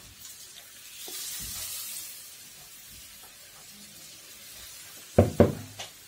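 Thin batter sizzling softly in a hot crepe pan, strongest a second or two in. Near the end come three sharp knocks, the loudest sounds here.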